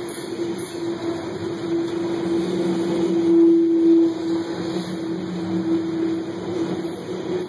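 Freight train of covered hopper cars rolling past at close range, with the rumble of the wheels on the rails and a steady tone running over it that swells loudest about three to four seconds in.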